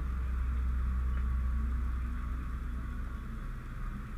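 Fire engine running steadily at the scene: a constant low rumble with a steady hiss above it.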